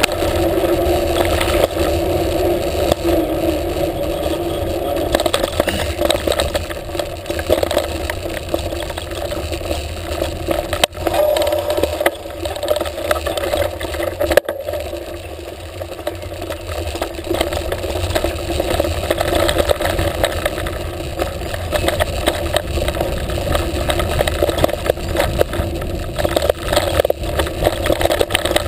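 Mountain bike riding over a lane and woodland dirt trail, heard through a handlebar-mounted GoPro: a steady rumble of tyre and wind noise with constant small rattles and knocks from the bike and camera mount, and one sharp knock about midway.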